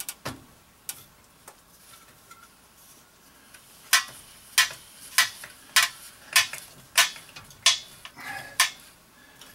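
New boiler expansion tank (Amtrol Extrol 30) being spun by hand onto its threaded fitting, making a few faint clicks and then, from about four seconds in, a steady series of sharp metallic clicks, a little under two a second, as it is turned.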